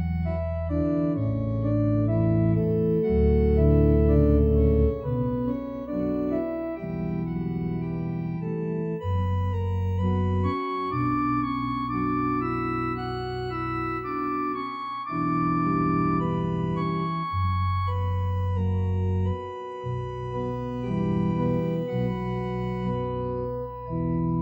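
Organ playing slow, held chords over a sustained bass line, the chords changing every second or two with short breaks between phrases.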